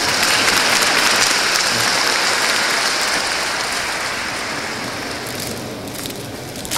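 Large audience applauding, dense and even at first, then gradually dying away in the last few seconds.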